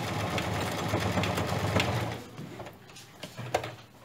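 Domestic electric sewing machine running steadily as it stitches a reinforcing seam across the ends of the waist elastic, stopping about two seconds in. A few light clicks follow.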